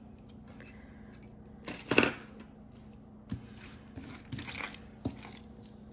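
Pieces of costume jewelry clinking and clattering as they are handled and set down, with one louder clatter about two seconds in and a few lighter knocks after it. A low steady hum runs underneath.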